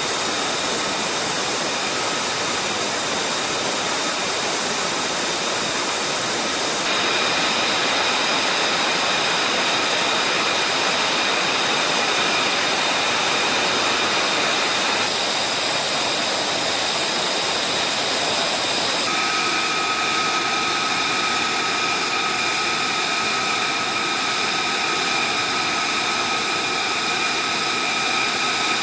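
F-35A Lightning II's Pratt & Whitney F135 turbofan running at idle, kept running while the jet is refuelled: a steady rushing noise with several high whining tones on top. The whine shifts in pitch and strength a few times.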